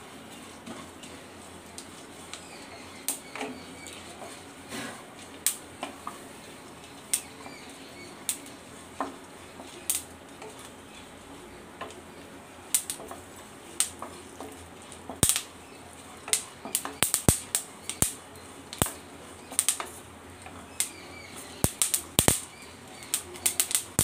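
Melon seeds popping as they dry-roast in a hot kadai: sharp scattered clicks that come thicker and faster in the last third, with a spatula stirring and scraping the seeds around the pan.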